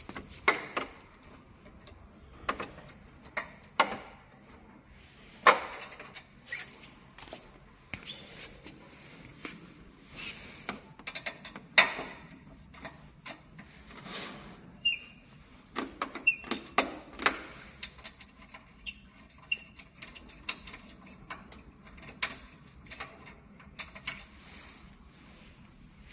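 Irregular clicks and knocks of a treadmill's hard plastic display console housing being handled and worked loose during a display replacement, with a few short plastic squeaks around the middle.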